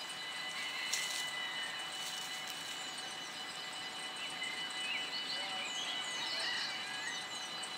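Electronic warning bells of a Dutch automatic half-barrier (AHOB) level crossing ringing steadily with the barriers down, the signal that a train is about to pass.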